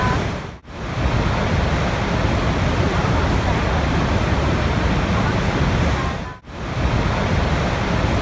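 Steady rushing water noise. It dips sharply and briefly twice, about six seconds apart, as if a short looped recording were restarting.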